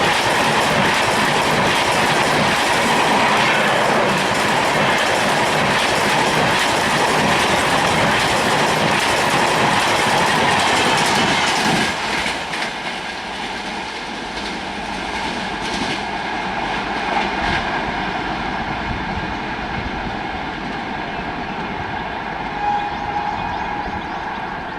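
Passenger train coaches rushing past at high speed, wheels clattering over the rail joints. The noise drops suddenly about twelve seconds in and continues at a lower level.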